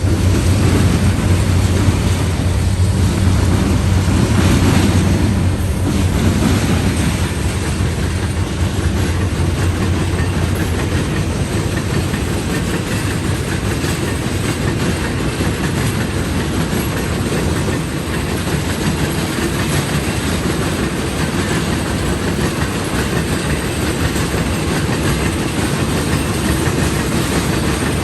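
Freight train passing close by: the deep hum of the diesel-electric locomotives for the first several seconds, then the steady rumble and clickety-clack of the railcars' wheels running over the track.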